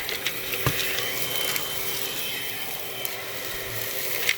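Hoover Onepwr Blade cordless stick vacuum running steadily with its soft dusting brush, sucking pet hair and dust off a speaker, with a steady motor whine. A sharp knock comes less than a second in, and a few light clicks follow as the brush touches the surface.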